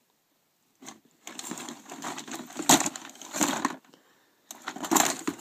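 Clattering and scraping of hard plastic and metal RC car parts being shifted about by hand in a plastic storage tub, in two bouts of rummaging.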